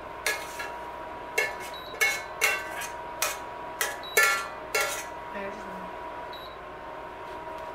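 Metal utensil scraping and knocking against a stainless steel frying pan, about ten sharp ringing clinks over the first five seconds, as browned ground beef is scraped out of the pan; the knocking stops about five seconds in.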